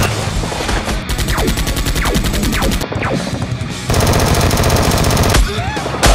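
Bursts of rapid automatic gunfire, three in a row: one breaks off about a second in, the next runs to about three seconds, and the last runs from about four to five and a half seconds. Music plays underneath.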